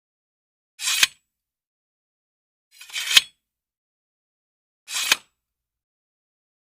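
A sound effect played three times, about two seconds apart: each a brief scraping swish that ends in a sharp click, with dead silence between.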